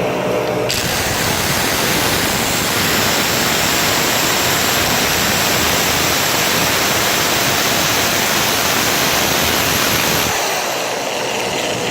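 Electric drill boring into a wall, a loud, even noise that starts under a second in and stops about ten seconds in. A vacuum cleaner held at the hole to suck up the dust runs steadily underneath throughout.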